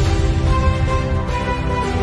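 Background music with sustained tones over a heavy bass.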